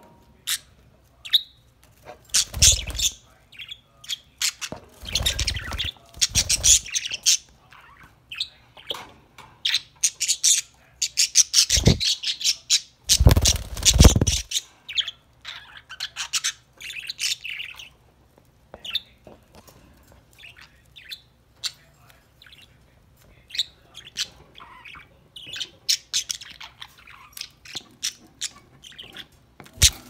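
Pet budgerigars chirping and chattering in quick, busy runs of short high notes. A few low muffled bursts come through, the loudest around the middle.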